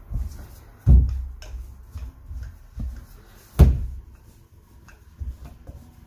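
Wooden rolling pin rolling out dough on a floured metal worktop: low rumbling strokes with a few knocks, two of them sharp, about a second in and just past the middle.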